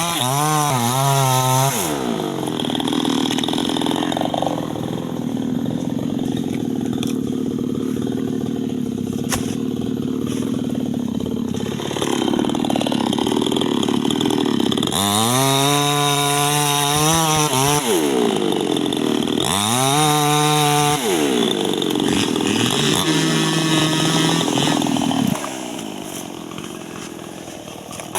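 New West 628 two-stroke chainsaw with a 26-inch bar cutting wood. It revs up sharply to high speed several times and falls back to lower, steadier running between. Near the end it drops off to a quieter, lower run.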